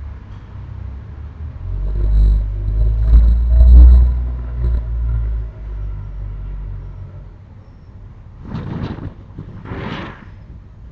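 A low rumble swells, is loudest about four seconds in, and fades. Then, near the end, come two short noisy gushes about a second apart from a washing machine, a sound written as 'gaa-bobo'.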